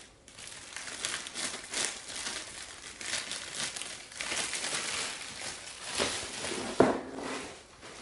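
Thin plastic bag crinkling and rustling as a ceramic foam filter is slid into it and handled, with a single sharp knock about seven seconds in.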